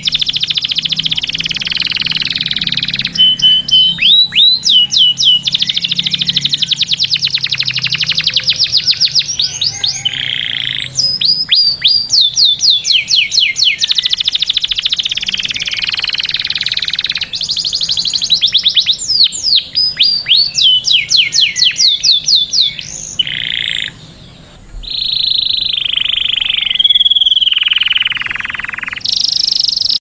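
Male canary singing a long, loud song of rapid trills and rolling phrases, each made of sweeping notes repeated many times a second and switching to a new phrase every few seconds. Near the end it breaks off briefly and goes on with long held notes.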